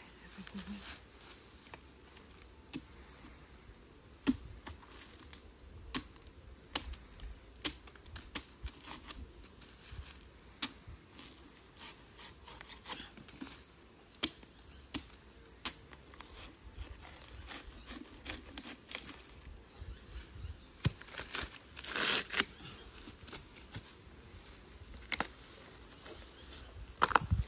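Dry bamboo leaves and stalks crackling and snapping in scattered, irregular sharp cracks, with a longer rustling tear about two-thirds of the way through and a louder crack near the end.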